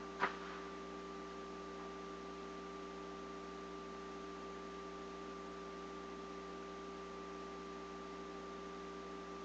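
Steady electrical hum with a few fixed tones over an even hiss. A single short click comes just after the start.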